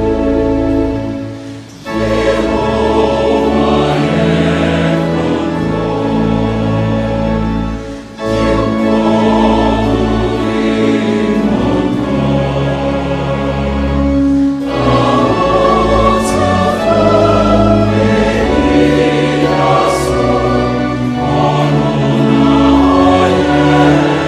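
Choral music: a choir singing long held notes, dipping briefly about two seconds in and again about eight seconds in.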